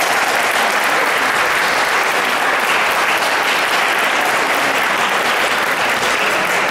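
Audience applauding steadily, a dense even clapping of many hands.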